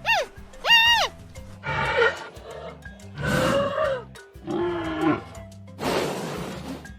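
A series of animal calls over background music: a short, high, arched call about a second in, followed by rougher, lower grunting calls spaced a second or two apart.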